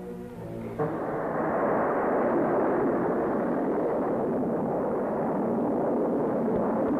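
Juno II rocket's first-stage engine firing at liftoff: a sudden, loud, steady rushing rumble that starts about a second in and holds without letting up.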